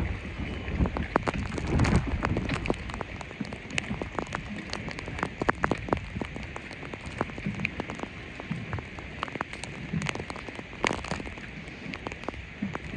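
Heavy rain spattering close to the microphone: a steady hiss of rain on the water with many sharp, scattered drop ticks. Low buffeting rumbles through the first two seconds.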